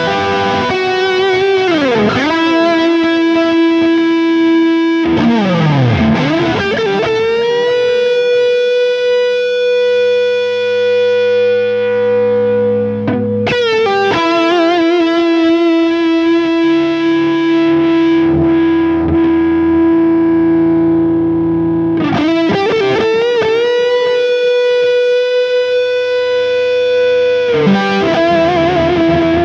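Old Charvel electric guitar played through heavy distortion, holding long sustained notes of several seconds each. A few times the pitch swoops down and back up before the next long note rings on.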